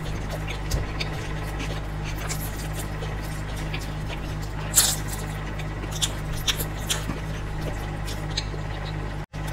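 Close-miked eating sounds of noodles being chewed and slurped: scattered wet smacks and clicks, with one short, louder slurp about five seconds in, over a steady low hum. The sound cuts out for an instant near the end.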